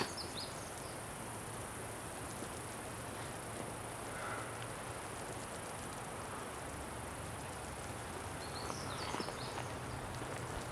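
Outdoor forest ambience: insects buzzing steadily at a high pitch, with a few brief high chirps about nine seconds in.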